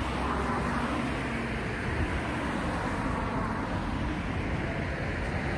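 Steady road traffic noise from cars passing on the road alongside, with wind rumbling on the microphone.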